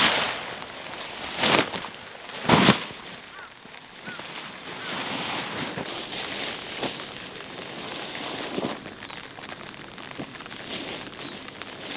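Nylon fabric of a Nest tent rustling and flapping as it is shaken out of its bag and spread on the ground, with wind blowing across the hilltop. The two loudest rustles come in the first three seconds, with softer rustles after.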